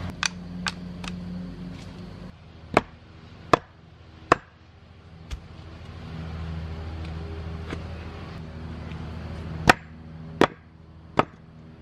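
Sharp, separate thuds of a metal-handled tool ramming loose dirt down around the base of a wooden fence post, several in quick succession at first, then about one a second. A steady low engine hum runs underneath, fading about two seconds in, returning around six seconds and stopping just before ten seconds.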